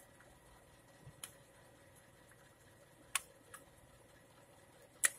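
A few sparse, sharp metallic clicks from a long steel tool working against an alternator while its nut is being tightened, the last click the loudest.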